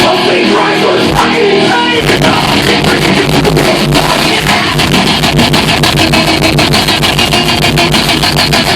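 Heavy metal band playing live, loud: distorted electric guitar alone at first, then the drums and bass come in about two seconds in with fast, dense drumming under the guitar.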